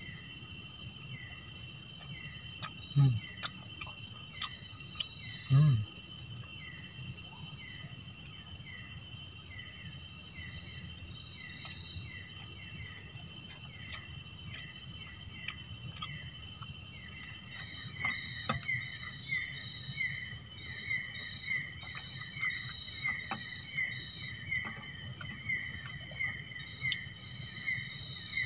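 Tropical plantation ambience: a steady high insect drone, with a chirp repeating about twice a second that grows louder a little past halfway. Two short low sounds stand out about three and five and a half seconds in.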